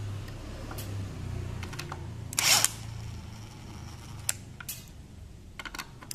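Small clicks and clinks of loose screws being handled, with a short burst from a cordless brushless impact driver's motor about two and a half seconds in and another starting near the end as it is set on a screw.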